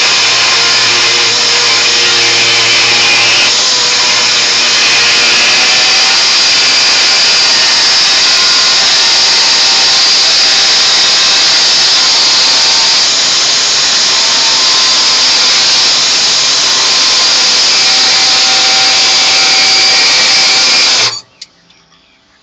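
A power tool running continuously, a steady high hissing whine, cutting off suddenly about 21 seconds in and starting again shortly after.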